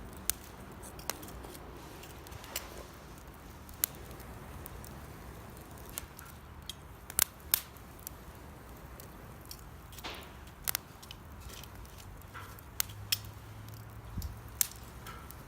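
Campfire of damp firewood crackling, with sharp irregular pops and snaps from moisture in the wood over a faint steady hiss of the flames.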